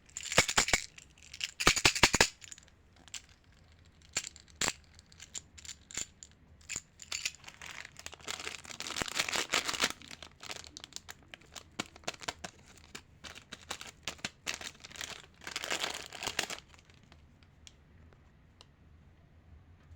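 Crinkly plastic candy wrappers being handled and torn open, in irregular bursts of crackling rustle with sharp clicks. It stops about sixteen seconds in.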